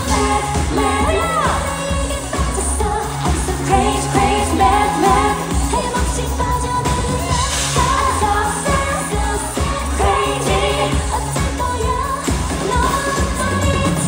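Live K-pop performance: women singing into microphones over loud backing music with a steady, heavy bass beat.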